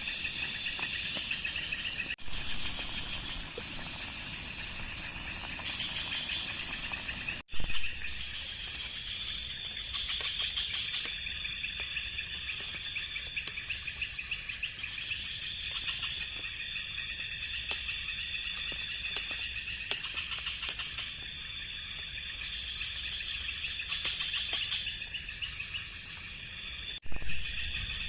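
Steady, finely pulsing chorus of night insects such as crickets in tropical forest after rain. It is broken twice by a brief dropout and a short loud knock.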